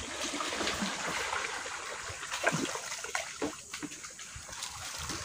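Water trickling and splashing around a bamboo raft as it is poled along, with a few short, sharper sounds about halfway through.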